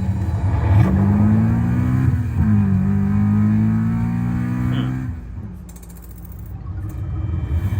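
An engine running and revving, its pitch dipping and rising. It fades out about five seconds in.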